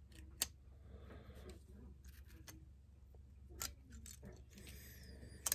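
A few faint clicks and small handling taps as thin reed petals are pressed back into a Homelite Super XL chainsaw reed cage by hand. The sharpest click comes near the end, and a low steady hum runs underneath.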